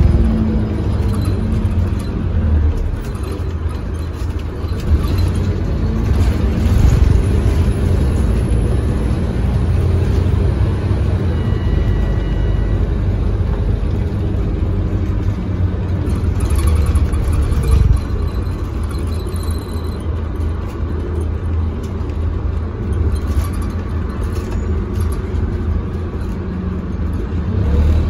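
Interior sound of a Scania K280UB city bus under way: its diesel engine running with a steady low rumble and whir, with road and body noise from inside the cabin.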